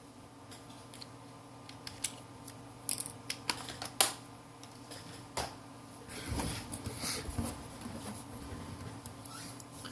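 A plastic opening pick clicking and scraping against the edge of a Samsung Galaxy A3 phone as it is pressed into the seam between the screen and the frame, failing to get in. Irregular small clicks, the sharpest about four seconds in, with a stretch of scratchy scraping past the middle.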